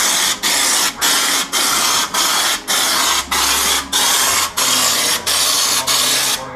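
Air-fed bedliner spray gun spraying U-POL Raptor bedliner onto the inside of a car cabin's roof: a loud hiss of air and coating, pulsed in short bursts with brief breaks about every half second.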